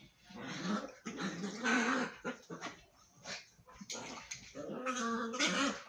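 A Chihuahua and a white Doberman Pinscher growling at each other in rough play, in bouts of rough, rumbling growls.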